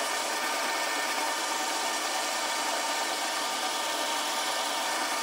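Metal lathe running under power feed at 250 RPM, its tool taking a lubricated 10-thousandths cut on a mild steel bar: a steady, even whir and hiss of the machine and the cut.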